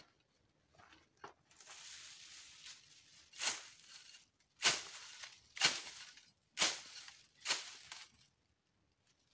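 Wooden stick poked and swished through a clump of dry grass, a stretch of rustling followed by five sharp rustling swishes about a second apart.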